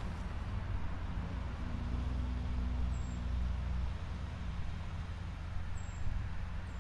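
Low rumble of road traffic, swelling for a couple of seconds in the middle as a heavy vehicle's engine goes by, then easing off.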